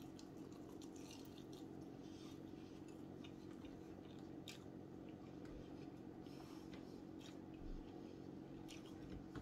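A person faintly chewing a bite of sauced chicken wing, with scattered soft clicks and smacks of the mouth, over a steady low hum.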